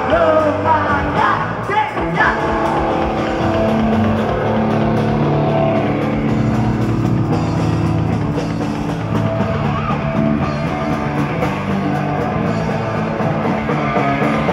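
Punk rock band playing live: distorted electric guitars, bass and drums, with a shouted vocal in the first two seconds, then the band playing on without vocals.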